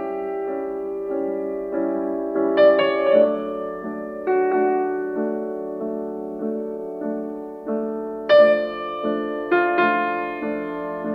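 Piano music: low chords repeated in an even rhythm, with brighter high notes struck over them now and then.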